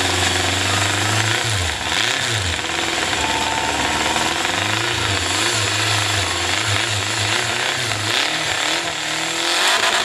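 Hot saw, a racing chainsaw powered by a converted vehicle engine, running hard and loud; its engine pitch dips and recovers several times as it loads up and frees, as in a cut through a log.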